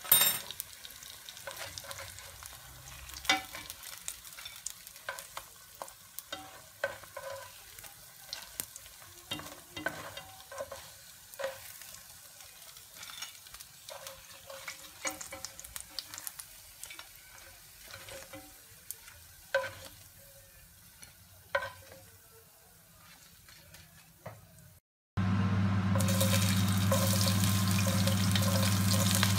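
Bread slices frying gently in oil in a terracotta cazuela, with quiet crackling and sharp clicks and scrapes as a spatula turns them against the clay. About 25 seconds in, chopped garlic goes into the hot oil and a much louder, steady sizzle starts, over a low hum.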